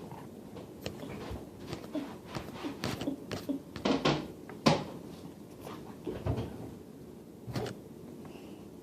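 A series of scattered light knocks and clicks, the loudest about four seconds in, like household objects being handled.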